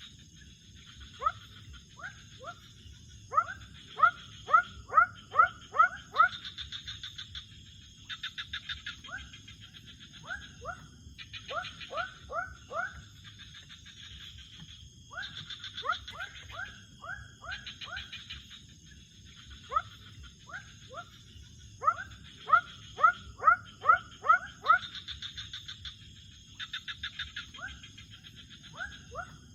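Night chorus of animal calls: bouts of short rising calls, several a second, recurring every few seconds over steady trilling and a continuous high insect buzz.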